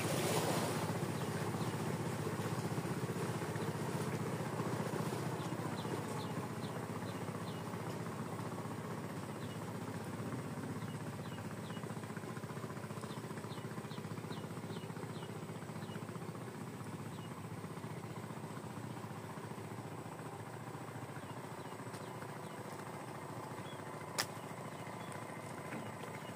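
Small boat's engine running out on the river, a steady drone that slowly fades as the boat moves away. Faint short high chirps come and go in the middle, and a single sharp click sounds near the end.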